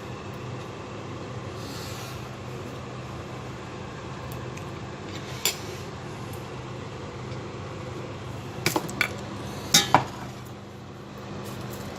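Kitchen dishes and utensils being handled: a sharp clink about five seconds in and a few more knocks and clinks about nine to ten seconds in, over a steady background hum.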